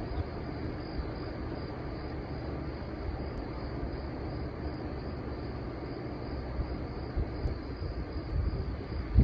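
Steady outdoor background noise with a low rumble, which grows uneven and slightly louder in the last couple of seconds.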